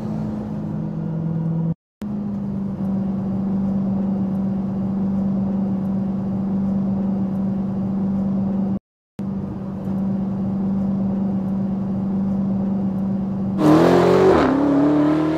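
Supercharged 6.2-litre V8 of a 2018 Dodge Challenger SRT Demon running steadily, broken twice by brief silences, then revving louder near the end with its pitch rising and falling.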